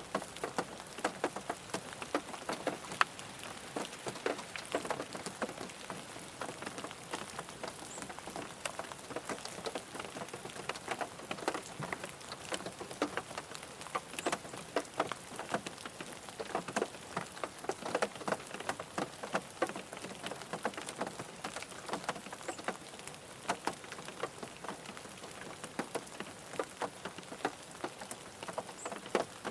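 Steady rain falling on a car, with many individual drops pattering sharply and irregularly on the body over an even hiss of rainfall.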